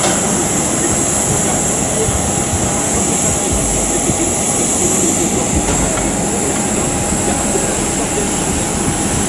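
Jet airliner engines running: a steady, loud roar with a high hiss and a faint steady whine underneath.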